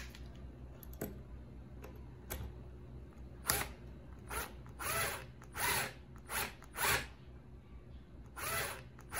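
Cordless drill/driver with a screwdriver bit run in about seven short trigger pulls from a few seconds in, each a brief whir, driving a cabinet hinge screw. The screw spins without tightening because its hole in the wood panel is worn out, a stripped screw hole.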